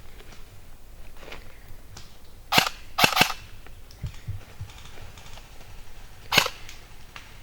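Airsoft gun firing single shots, each a short sharp crack: one about two and a half seconds in, a quick cluster of two or three just after, and one more near the end. A few soft low thumps fall between them.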